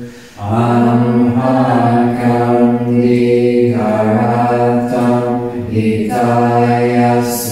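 Chanted mantra as background music: voices intoning on long held low notes, with short pauses between phrases.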